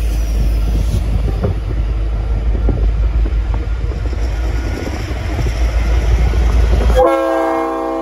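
V/Line N class diesel locomotive approaching with a loud low rumble, then about seven seconds in its Leslie RS5T five-chime horn sounds a steady chord of several notes.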